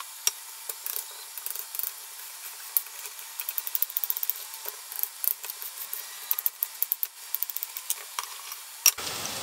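Serrated knife chopping peeled zucchini into small cubes on a wooden cutting board: sharp clicks and knocks of the blade, some in quick runs, over a faint hiss.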